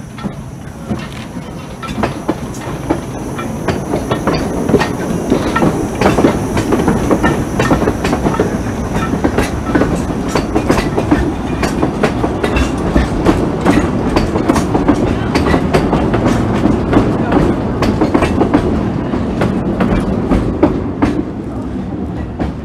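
Narrow-gauge steam train and its carriages rolling past close by, the steady running noise scattered with many sharp clicks and clatters as the wheels cross rail joints and pointwork.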